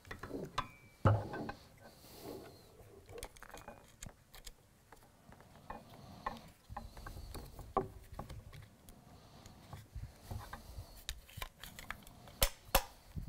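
Steel parts of a Vz 61 Škorpion machine pistol clicking and clacking as it is put back together by hand: the bolt and recoil springs seated in the receiver and the receiver closed. There are scattered light clicks, a knock about a second in, and two sharp clicks near the end.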